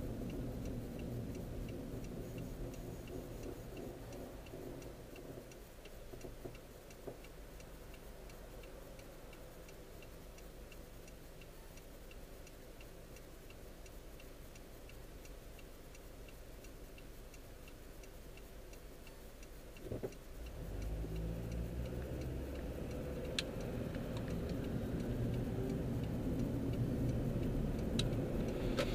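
Car turn-signal indicator ticking steadily, about two clicks a second, inside the cabin over a low idling engine. About twenty seconds in, the engine revs up and runs louder as the car accelerates through the turn.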